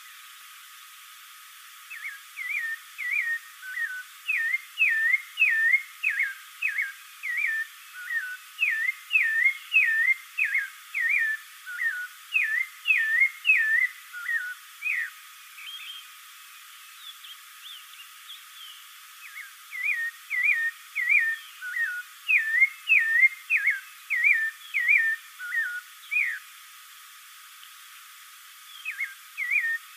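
Spectacled thrush singing: long runs of short, hooked whistled notes, two to three a second, over a steady hiss. The song breaks off twice for a few seconds and starts again near the end.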